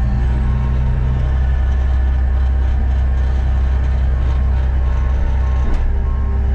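Diesel truck engine running steadily with a low hum. Its note shifts lower, with a click, a little before the end.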